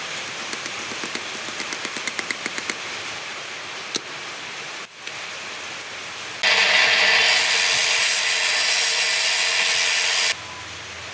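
A run of quick sharp clicks, then about six seconds in a loud steady noise from a power tool that runs for about four seconds and stops abruptly.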